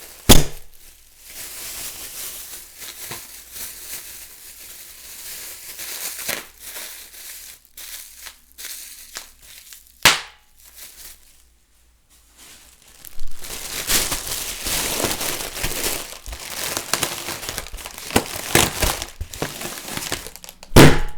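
Plastic bag being crinkled and crushed by hand, softly at first and then more densely in the second half. Sharp pops of a bag bursting come just after the start, about ten seconds in and near the end; the first is the loudest sound.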